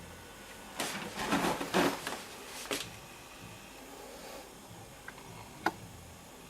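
Rustling handling noise for about two seconds, then two short sharp clicks a few seconds later.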